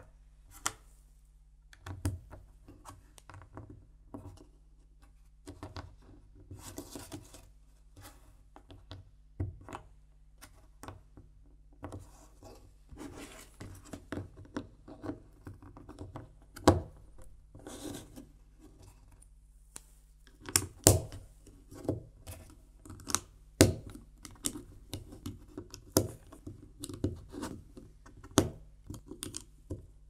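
Plastic LEGO bricks being handled and pressed together: a string of sharp clicks and light rattling, with a few louder snaps in the second half.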